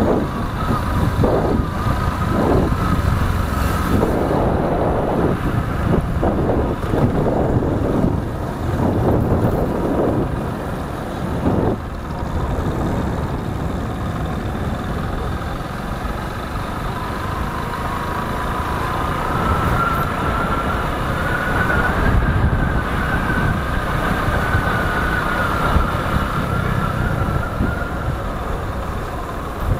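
Road and traffic noise heard while riding through city streets: a vehicle engine running under the steady rumble of surrounding traffic, with irregular swells as vehicles pass. A faint wavering whine rises and falls through the second half.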